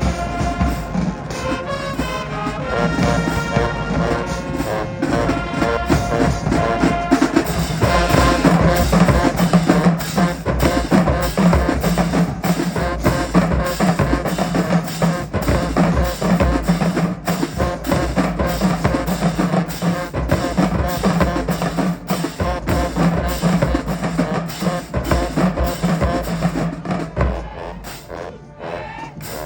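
High school marching band playing, brass over a drum line of bass and snare drums. The horns hold long chords at first, the drumming gets heavier about eight seconds in, and the music drops quieter near the end.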